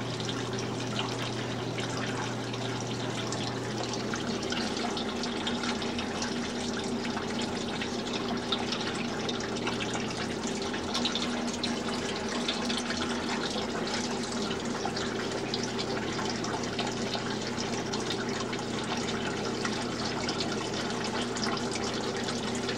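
Water steadily trickling and splashing in a tabletop model's fountain, the fake 'blood' streaming from a plaster bat's mouth into the cave below, over a steady low hum.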